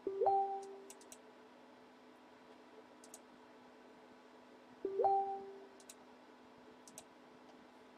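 Two identical short electronic tones about five seconds apart, each a quick upward swoop that settles into a held note, with a few faint mouse clicks between them.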